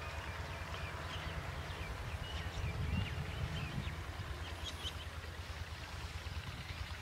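Open-field ambience: a steady low rumble of wind on the microphone, with a few faint bird chirps in the middle.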